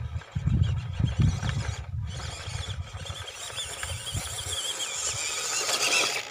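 Small electric RC crawler truck, an MN45 Toyota FJ40 kit with an upgraded 260 motor, driving over loose gravel. Uneven crunching and thumps from the tyres on stones come first. Then the motor and gear whine grows louder as the truck comes up close, and the sound cuts off suddenly at the end.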